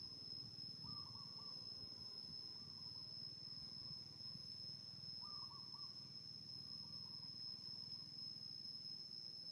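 Faint outdoor ambience: a steady high-pitched insect drone, with a distant bird's short wavering call repeated a few times, about four seconds apart.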